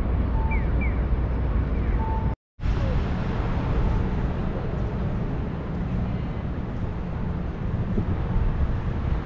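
City street ambience: a steady rumble of road traffic, with a few short high beeps and falling chirps in the first two seconds. The sound drops out completely for a moment about two and a half seconds in, then goes on as steady outdoor city noise.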